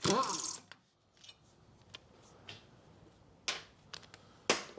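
A short burst from a power impact gun undoing the brake disc's locating screw, then small metal clicks of the tool and loose parts being handled, with two sharper knocks near the end.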